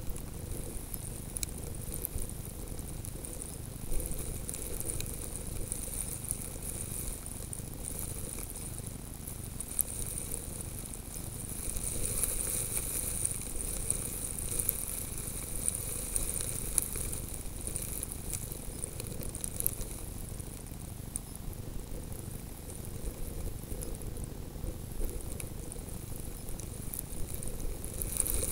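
Wind-driven snow grains ticking and pattering against a camera lying in the snow, over a steady high hiss that swells for a few seconds midway.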